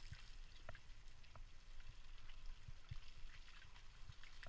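Bicycle tyres rolling through wet mud: a steady low rumble with scattered wet squelches and splatters.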